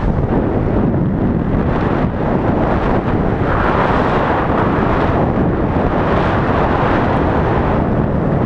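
Wind rushing over a pole-mounted camera's microphone while parasailing high in the air: a loud, steady buffeting rush.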